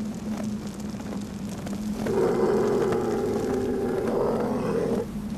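A wolf howling: one long, steady howl that starts about two seconds in and lasts about three seconds, over a low steady hum.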